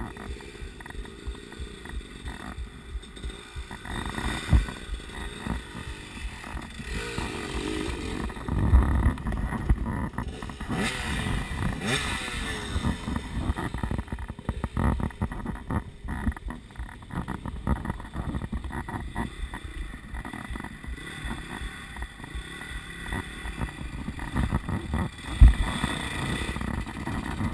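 Dirt bike engines running: a second dirt bike rides up the trail, its engine note rising and falling with the throttle, and pulls up alongside another dirt bike. A couple of sharp knocks stand out, one a few seconds in and one near the end.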